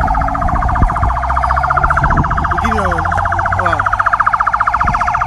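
Vehicle siren sounding a loud, rapid pulsing warble at a steady pitch.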